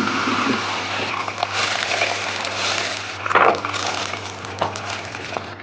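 Layered flatbread dough sizzling in a little hot oil in a pan, a steady crackling sizzle with a few clicks and a low hum underneath.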